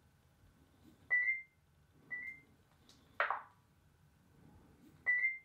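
Short, high electronic beeps of one steady pitch: one about a second in, another a second later, and a third near the end. A brief noisy burst comes about three seconds in, as part of a pattern that repeats.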